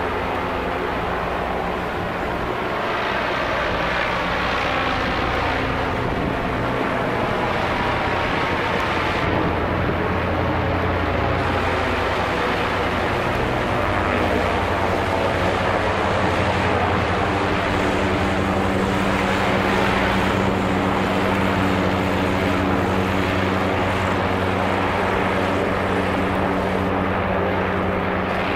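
Zeppelin NT airship flying overhead, its piston engines and propellers running steadily. The sound is a low engine hum that grows stronger about halfway through, with a slowly sweeping whoosh over it.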